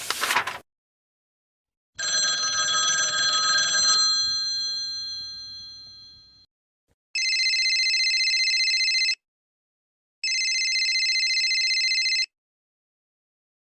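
A telephone ringing twice, each ring a trilling bell sound about two seconds long with a short pause between. Before it, a ringing, bell-like tone fades out over about four seconds.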